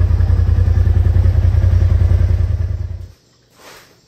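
Polaris RZR Pro XP's turbocharged twin-cylinder engine idling with a steady low pulse, cutting off abruptly about three seconds in. Faint clatter follows.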